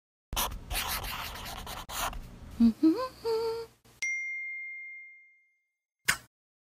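Logo intro sound effects: a scratchy scribbling sound for about two seconds, then a short tone that slides up in pitch and holds, then a bright ding about four seconds in that rings out and fades over a second and a half. A brief noise comes near the end.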